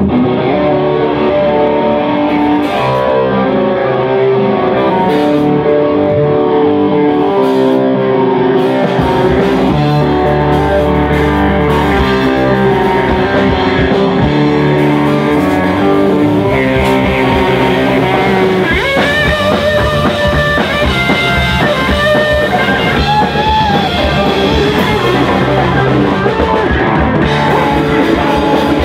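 Live rock band playing loudly: electric guitars, bass and drum kit. The low end fills in heavily about a third of the way through, and a lead vocalist comes in singing over the band about two-thirds of the way through.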